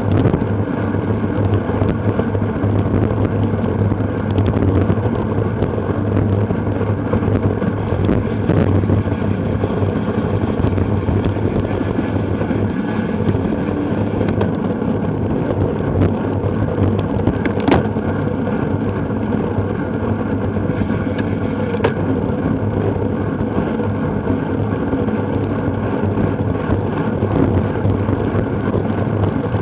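Steady wind rush and road noise on a bike-mounted action camera during a bicycle race at speed, with a few sharp clicks.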